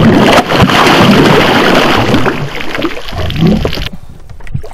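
A hooked giant snakehead (toman) thrashing and splashing at the water's surface beside a boat, loud and continuous, dying down sharply near the end.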